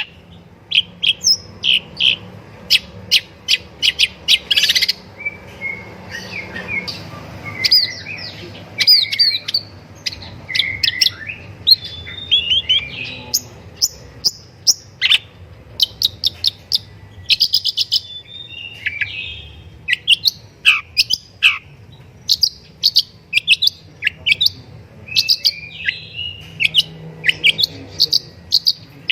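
Long-tailed shrike singing energetically: quick runs of short, sharp, high chip notes mixed with warbled, gliding chatter phrases.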